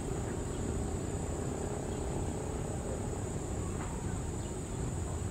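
Steady high-pitched insect chirring, like crickets or cicadas, over a low steady rumble.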